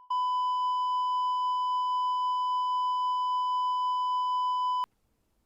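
A single steady electronic beep at one high pitch, held for nearly five seconds and cutting off suddenly.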